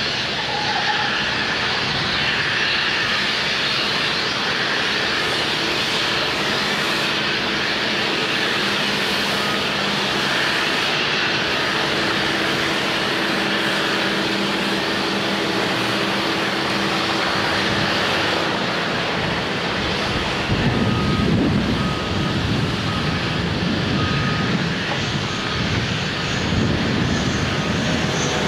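Steady drone of heavy machinery running, with a low hum. About two-thirds of the way in, a warning beeper sounds about five times, roughly once a second, and uneven low rumbling comes and goes toward the end.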